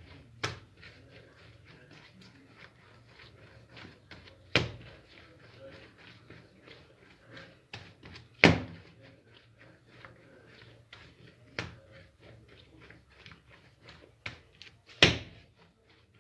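Bread dough being kneaded by hand on an oiled work surface: a steady patter of small sticky clicks, with the dough slapped down hard five times, about every three or four seconds.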